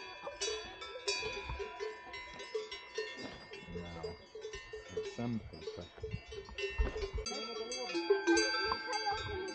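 Several cowbells on grazing cattle clanking irregularly, their overlapping ringing tones at different pitches, growing busier and louder near the end.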